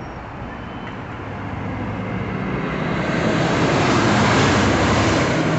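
Traffic: a motor vehicle passing close by, its tyre and engine noise building to its loudest about four seconds in and then fading, with a low engine hum near the end.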